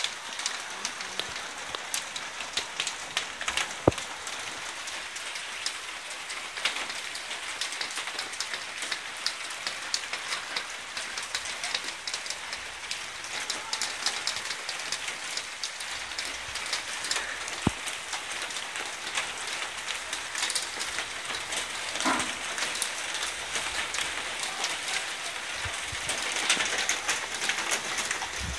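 Heavy stormy rain falling on pavement and road: a steady hiss with frequent sharp ticks of drops landing close by, and one louder tick about four seconds in.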